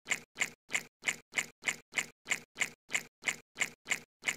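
Edited-in sound effect: a short hissy click repeated evenly about three times a second, with dead silence between, standing for a praying mantis drinking water.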